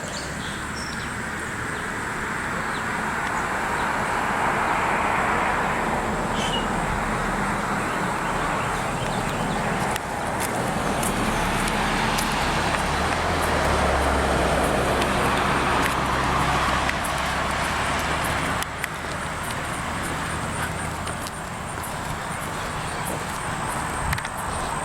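Road traffic: vehicles passing one after another, each swelling and fading, with a low engine hum under the tyre noise as one goes by about halfway through.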